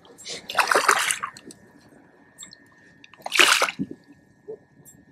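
A hooked hybrid striped bass (wiper) thrashing at the surface beside a kayak as it is netted: two loud splashes, one about a second in and another about three and a half seconds in.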